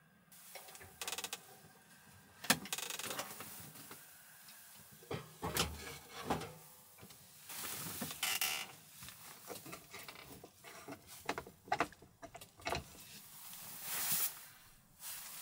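Assorted handling noises: scattered clicks and knocks with several short bursts of rustling, as things are moved about and set out.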